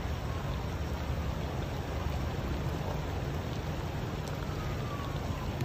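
Steady rushing noise of rain and floodwater, with a heavy low rumble underneath.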